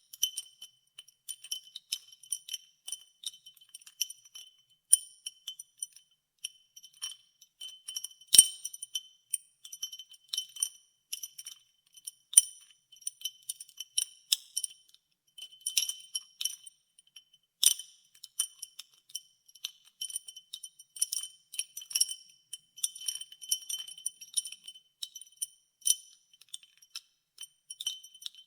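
Ice cubes stirred in a glass of water, clinking irregularly against the glass several times a second. Each clink rings the glass at the same high pitch. A louder knock comes about eight seconds in.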